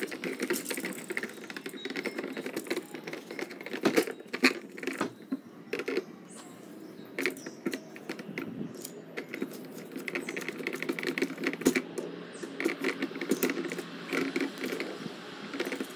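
Hands handling a GFCI receptacle and its wires: irregular plastic and metal clicks and rattles as the wires go into the back-wire terminals, with a screwdriver turning the terminal screws near the end.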